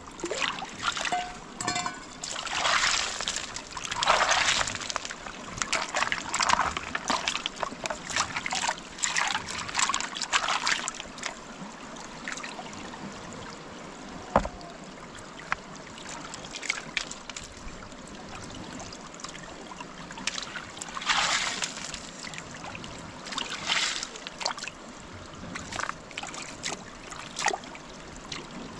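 Muddy water splashing and sloshing as it is bailed out of a shallow rock pool with a metal bowl and by hand: repeated splashes in two spells, with trickling water between and one sharp knock about halfway through.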